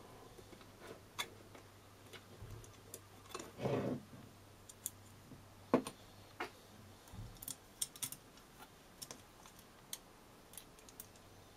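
Scattered light clicks and taps of small metal parts being handled as thumb screws and washers are fitted to a telescope focuser motor's bracket, with a short handling rustle about four seconds in.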